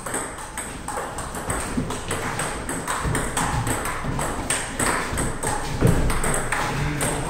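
Table tennis ball hit back and forth in a fast rally: a run of sharp clicks a fraction of a second apart as the ball strikes the bats and bounces on the table.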